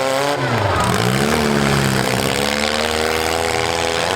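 Demolition derby car engines revving, their pitch falling and rising again several times.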